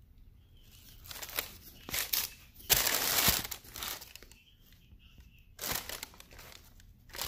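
Tissue paper in a shoebox rustling and crinkling as a sneaker is handled. It comes in several bursts, the loudest and longest about three seconds in.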